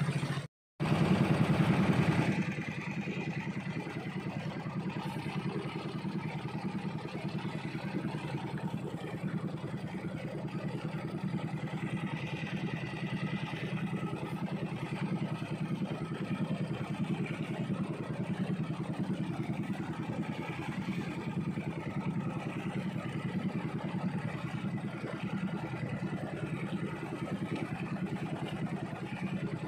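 Small fishing boat's motor running steadily under way, with water rushing along the hull. The sound drops out for a moment near the start, is louder with splashing for the next second or so, then settles into an even engine drone.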